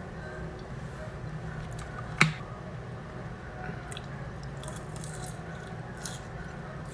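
A single sharp click or knock about two seconds in, over a steady low background hum, with a few faint small clicks of handling.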